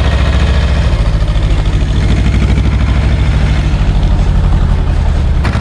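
Same tractor's engine running steadily with an even, pulsing note as it pulls a trailer loaded with gravel. The sound changes abruptly to a different engine note near the end.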